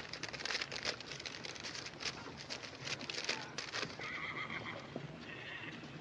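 Horses' hooves clopping and stamping on hard ground, with a horse whinnying about four seconds in.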